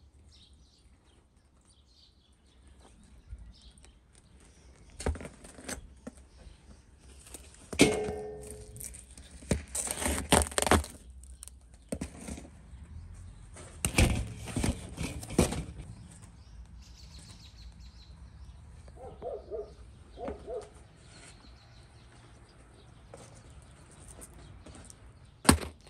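Metal bread hook and flat scraper knocking and scraping against the inside of a clay tandoor as baked loaves are pried off the wall and lifted out. It comes as scattered sharp knocks, the loudest about eight seconds in with a short metallic ring, and bursts of scraping around ten and fourteen seconds in.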